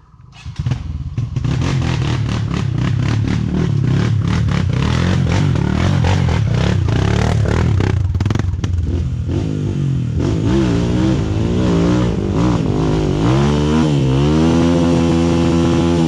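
Dirt bike engine that sets in suddenly about half a second in and runs with rapid, clattering firing, then revs up and down repeatedly through the second half.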